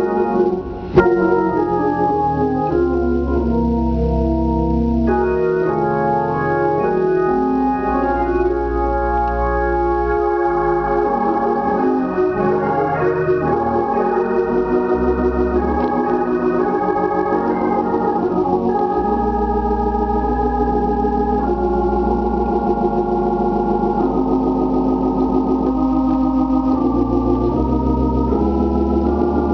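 Hammond B-3 organ playing sustained chords that change every second or so over held low bass notes. A sharp click sounds about a second in.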